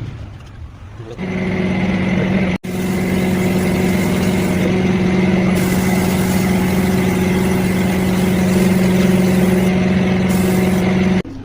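A motor running at a steady pitch. It starts about a second in, breaks off for an instant, then runs on and cuts off suddenly near the end.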